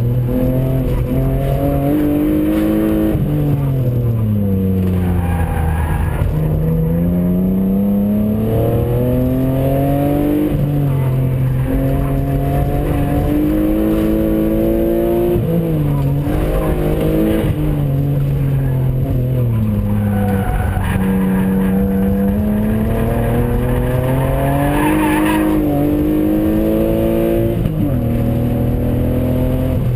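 Car engine on an autocross run, revving up and falling back again and again as the car accelerates, shifts and brakes through the course, with tyres squealing at times.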